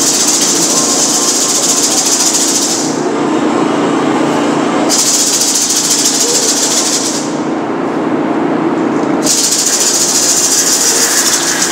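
Hand-held gourd rattle shaken rapidly in three long bursts of about two to three seconds each, with short pauses between, over a steady low background hum.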